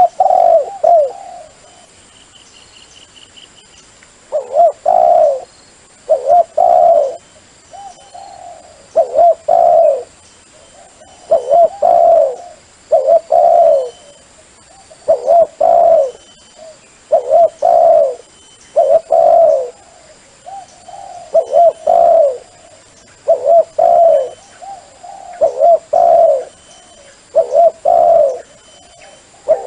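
Dove cooing over and over, a loud short phrase of a few coos every one to two seconds: a call recording made for luring wild doves.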